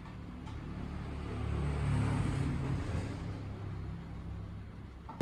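A low rumble that builds over about two seconds and then slowly fades.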